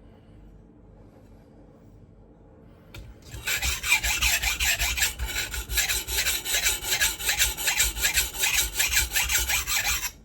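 Knife blade being sharpened on a coarse 400-grit water stone: quick back-and-forth strokes, about four a second, with a loud gritty scrape, starting about three seconds in and stopping abruptly near the end.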